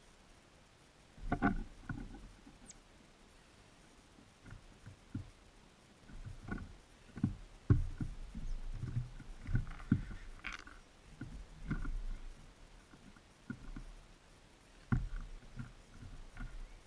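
Birds landing and pecking at seed on a feeder right beside the microphone: irregular taps, knocks and scrabbling thumps, several close together, with short quiet gaps between them.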